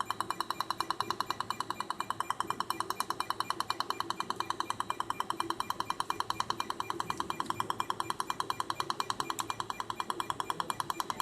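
Fotona Er:YAG laser handpiece firing pulse after pulse onto the soft palate in a snoring treatment: a fast, even train of clicks.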